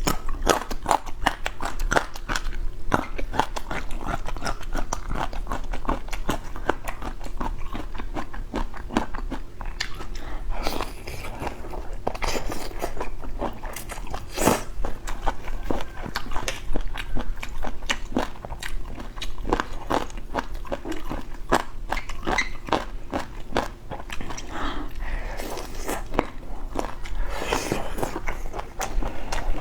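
Close-miked eating of boneless chicken feet: continuous chewing with many small crunches and bites in an uneven rhythm.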